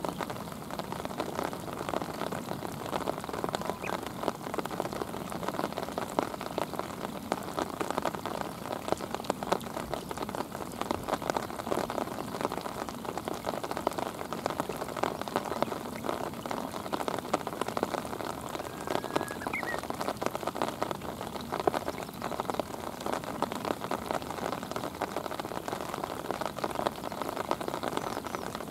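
Steady rain falling onto a shallow river's surface: a dense, even spread of countless small drop impacts on the water.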